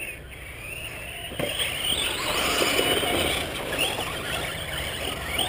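Radio-controlled off-road car's motor whining under throttle, picked up by a camera mounted on the car. About a second and a half in it gets louder, with a rising whine as the car accelerates down the dirt track.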